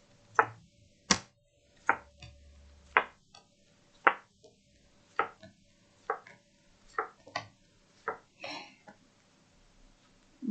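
A series of about a dozen sharp knocks, unevenly spaced at roughly one a second.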